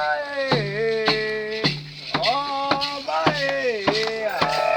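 Voices singing a Candomblé chant in held notes that slide down in pitch at the ends, over sharp, irregular percussion strikes.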